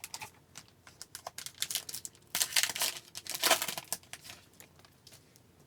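Crinkly wrapper of a hockey card pack rustling and tearing as it is ripped open, with light clicks of handling before it. The rustling is loudest in two spells near the middle.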